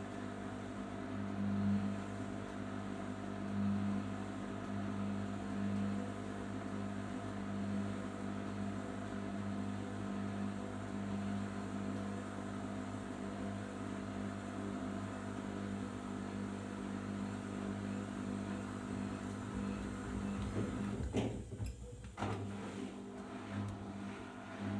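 Arçelik 5083 washing machine running in its final rinse and spin: a steady motor hum that swells about every two seconds. A few clicks and a brief change in the sound come near the end.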